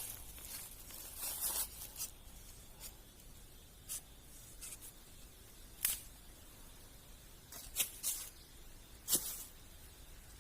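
Hands working on a snare of rope, rubber and fishing line: short scrapes and rustles at irregular moments, about ten in all, with the sharpest ones near the middle and toward the end.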